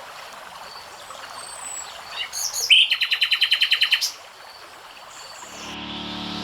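A songbird calling: a few short chirps, then a rapid even trill of about a dozen notes lasting just over a second. Music with a steady low tone fades in near the end.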